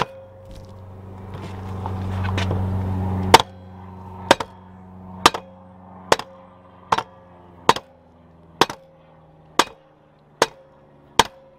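Rubber hammer striking a 4L60E transmission front pump to drive it down and seat it in the case: about ten sharp blows roughly once a second, starting a few seconds in, the first the loudest, over a steady low hum.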